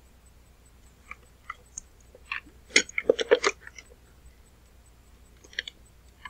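Wet mouth clicks and lip smacks from a dry mouth: a few single clicks, then a quick cluster about two to three seconds in, and a couple more near the end.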